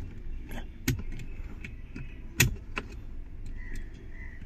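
Several sharp clicks and taps of metal tweezers against the small blade fuses and the plastic fuse box under a car's dashboard, as a fuse is worked loose. The loudest click comes about two and a half seconds in.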